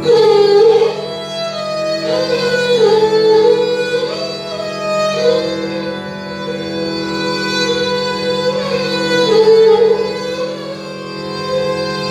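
Two sarangis bowing a slow, ornamented Hindustani melody in raag Nat Bhairav, the line sliding between notes over a steady drone. A loud phrase opens it, and there are no tabla strokes.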